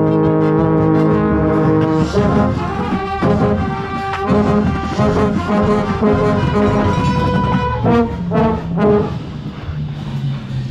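Marching brass ensemble playing, with a marching euphonium right at the microphone: a loud held chord that breaks about two seconds in into shorter, separate notes, one higher note held for about a second, then the playing drops away near the end.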